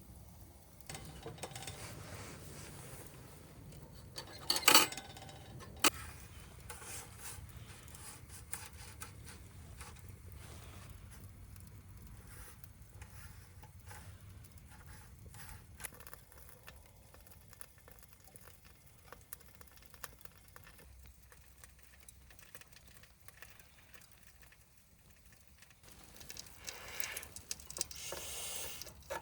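Wood fire crackling in a secondary-combustion fire pit, with two sharp knocks about five seconds in and a stretch of clattering handling noise near the end.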